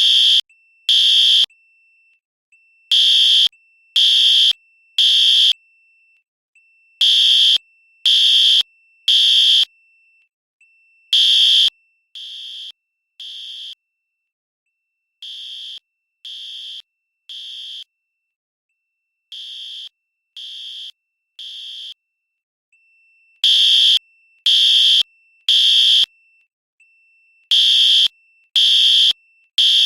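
Fire alarm sounding the temporal-three evacuation pattern: three loud, harsh high beeps about a second apart, then a pause of about two seconds, over and over. Near the middle it drops much quieter for three rounds, then comes back at full loudness, with a faint steady high tone between the beeps while it is loud.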